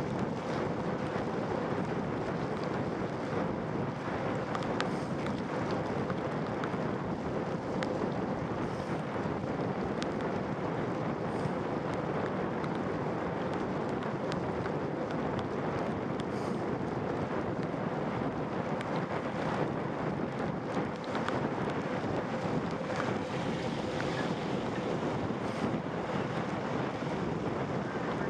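Steady wind noise buffeting the microphone during a bicycle ride, a constant rushing with a faint steady hum underneath.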